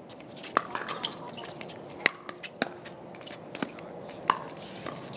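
Pickleball rally: hard paddles hitting the hollow plastic ball in a string of sharp pops about a second apart, five main ones with fainter taps between.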